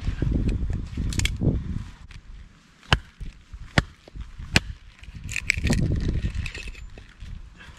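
Hatchet splitting firewood on a wooden chopping block: three sharp knocks about a second apart in the middle, as the hatchet, stuck in a log, is struck down onto the block. Wind buffets the microphone before and after.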